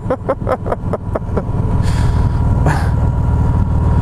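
A vehicle travelling on the road: steady low engine and road rumble, with a rapid run of light clicks in the first second or so and two short hisses a little later.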